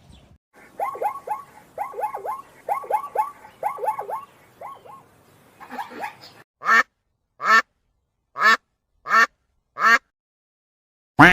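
Ducks quacking: first a quick run of short, falling quacks in twos and threes. Then, after a brief pause, about seven louder single quacks, spaced a little under a second apart.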